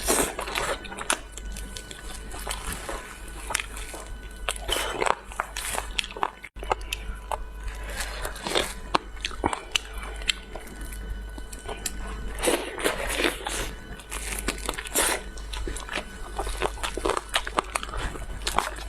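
A person biting into and chewing crunchy food close to the microphone, in irregular clusters of crisp crunches, with a brief break about six and a half seconds in.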